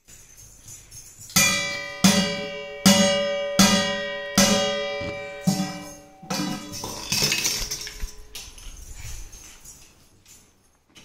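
A large stainless steel pot struck again and again with a wire spider strainer: about seven hits under a second apart, each ringing on as it dies away. A brief rough scraping rattle follows near the middle.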